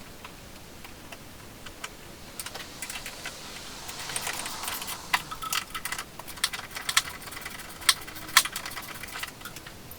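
Scattered sharp metallic clicks and clinks from hand tools and the bracket hardware as a catch-can bracket is bolted onto a car's strut brace. They start about two seconds in and come irregularly, a few a second.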